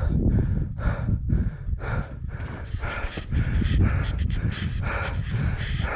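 A person panting hard, about two heavy breaths a second, over a steady low rumble on the microphone.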